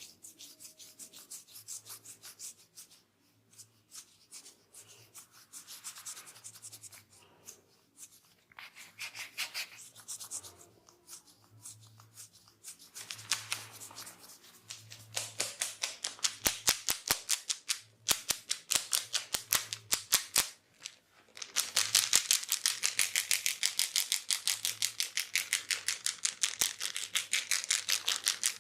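Hands massaging a head: rubbing and scrubbing through the hair with a crisp rustling hiss, turning about halfway through into fast, steady tapping on the head, several strikes a second and loudest near the end.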